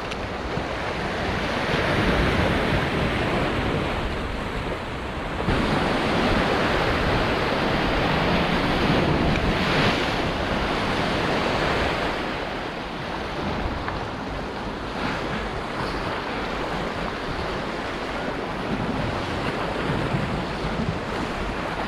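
Sea waves surging and washing over shoreline rocks, a steady rushing wash that swells and eases, with wind buffeting the microphone.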